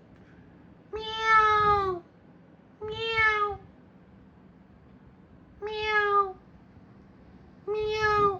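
Domestic cat meowing four times, a call every two seconds or so, each under a second long, holding its pitch and dropping a little at the end.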